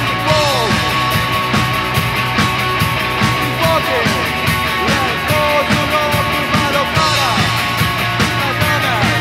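A punk/new wave rock band playing live, electric guitar to the fore over an even beat.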